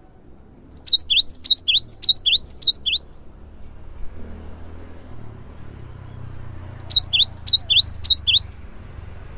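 Cinereous tit singing: two loud bursts of its ringing, rapidly repeated two-note phrase, each note sweeping down in pitch, about three phrases a second. Each burst lasts about two seconds; the second starts about six seconds after the first.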